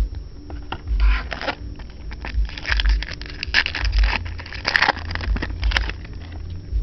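Stiff chrome trading cards being handled and slid against one another, with crackly scraping and clicking that is busiest in the middle and dies away near the end.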